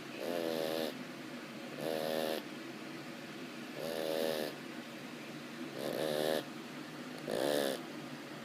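A flat-faced pug snoring in its sleep: five rattly snores, each about half a second long, coming every one and a half to two seconds, with quieter breathing in between.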